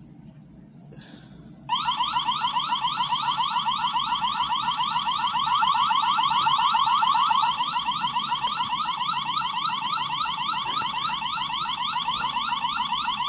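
Wyze security camera's built-in siren, switched on suddenly about two seconds in and wailing loudly as a rapid, repeating rising sweep, several whoops a second.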